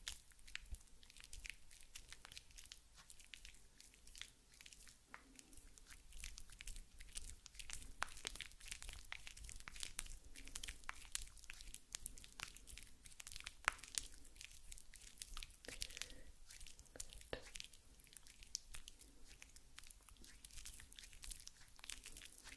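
Shaving foam being rubbed and spread by hand close to the microphone: a faint, dense, irregular crackling.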